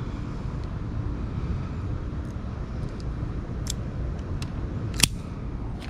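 Automatic wire stripper at work on a red wire: a few small clicks, then one sharp snap about five seconds in as the tool grips, strips and springs open. A steady low rumble runs underneath.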